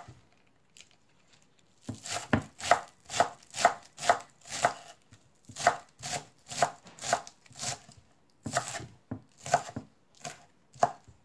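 Kitchen knife chopping Korean green onions finely on a wooden cutting board: a steady run of sharp knife strikes, about two a second. It starts about two seconds in and breaks off briefly partway through.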